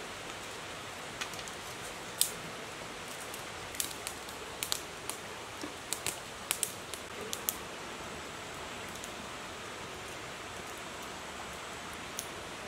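Steady rush of a shallow stream running over rocks, with a scatter of sharp clicks for a few seconds in the first half.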